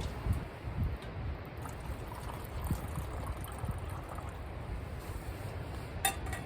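Wind buffeting the microphone in uneven gusts over a steady wash of outdoor noise, with a short click near the end.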